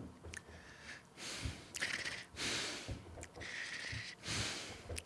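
A man breathing out heavily close to a studio microphone: a few breathy puffs in a row, starting about a second in.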